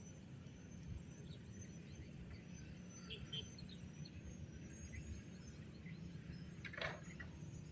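Faint outdoor ambience: a steady low rumble with scattered small bird chirps, and one brief louder call about seven seconds in.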